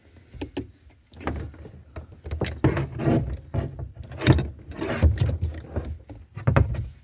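A run of irregular clunks and knocks over a low rumble, the loudest a little past four seconds in and at about six and a half seconds.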